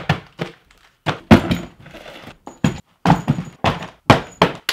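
Cardboard boxes being handled on a wooden table: a quick series of thuds as boxes are set down and stacked, mixed with cardboard tearing as flaps are ripped open.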